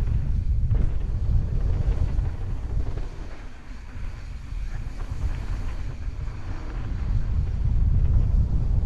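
Wind buffeting the microphone: a heavy low rumble that eases off briefly about three and a half seconds in, then builds again.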